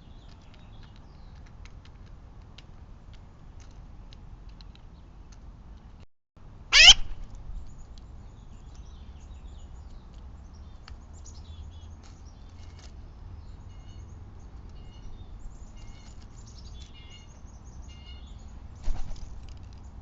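Backyard outdoor ambience with light ticks and rustles. About seven seconds in comes one sharp, very loud squeak that rises fast in pitch. Later a run of short, high bird chirps repeats for several seconds.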